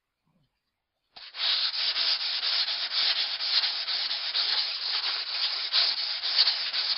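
Axe edge being stroked over 320-grit wet-dry sandpaper on a foam mat, honing out the scratches left by the coarser grit: a steady scratchy sanding with many quick strokes, starting about a second in.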